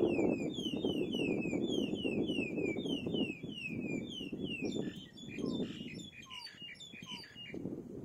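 Kite chicks calling from the nest: a run of short, falling whistles, about three a second, then a quicker jumble of higher and lower calls that stops shortly before the end. A low rumble of wind on the microphone runs underneath.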